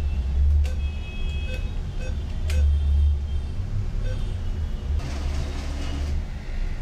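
Location sound at an ATM: a steady low rumble under several short electronic beeps, like keypad presses, spaced a second or so apart, with a couple of sharp clicks. A short burst of rustling noise follows about five seconds in.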